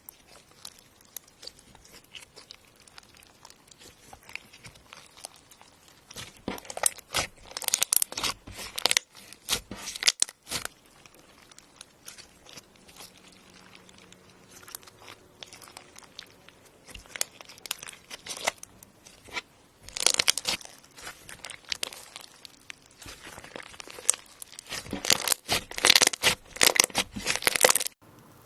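Slime being pressed and squeezed by hand, giving crunchy crackling in bouts. It starts with soft scattered crackles, then comes in dense bursts that are loudest near the end and stop abruptly.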